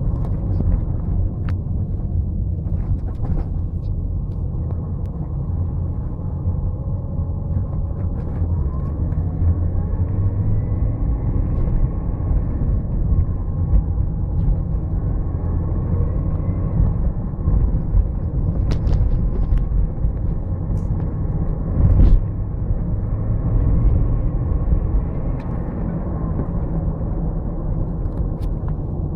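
BMW E39 with a whistle that rises and falls in pitch in several spells, over the car's steady low rumble. A single thump about 22 seconds in.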